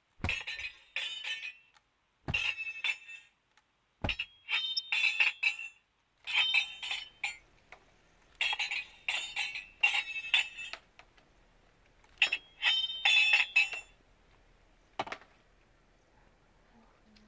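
Sword-fight clashes: blades clanging and ringing like metal, in quick flurries of several strikes every second or two, with a single last clang about fifteen seconds in.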